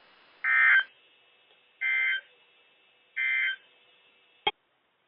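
NOAA Weather Radio SAME end-of-message code: three short bursts of warbling digital data tones about 1.3 seconds apart, the first the loudest, marking the end of the severe thunderstorm warning message. A sharp click about four and a half seconds in as the radio's audio cuts off.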